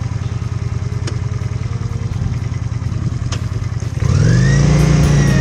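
Honda Shadow 400 V-twin motorcycle engine running with a steady low pulse. About four seconds in, electric guitar music starts and covers it.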